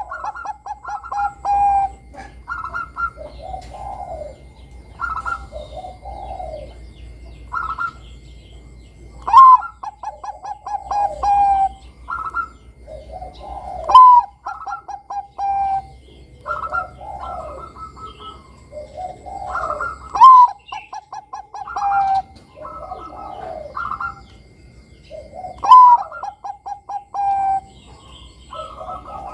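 Bangkok-type zebra dove (perkutut) singing its cooing song: about five loud phrases, each a sharp rising opening note followed by a quick run of short staccato coos, with softer coos in between. Faint chirps of other birds sound in the background.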